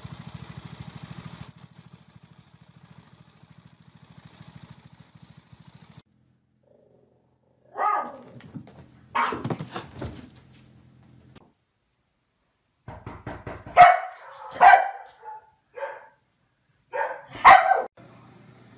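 A string trimmer running steadily for the first six seconds. Then a dog barking: a few loud barks around the middle, and another bout of barking near the end.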